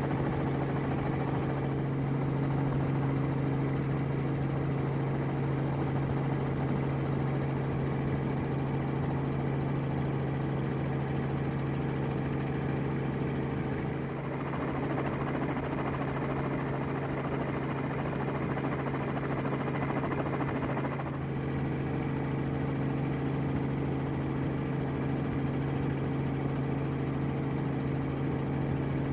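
Helicopter engine and rotor noise heard from aboard the aircraft: a steady drone with a constant low hum. About halfway through, the hum weakens for several seconds under a rougher rushing noise, then returns.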